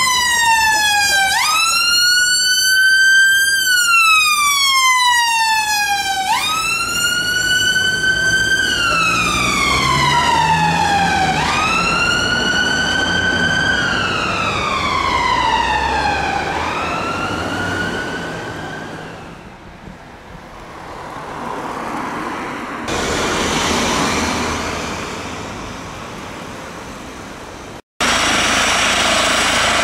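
A Fiat Ducato ambulance's wail siren sweeps up and down, about one cycle every five seconds, and fades away after about seventeen seconds as the ambulance drives off. A steady rushing noise follows, then a sudden cut near the end to an air ambulance helicopter's running turbine and rotor.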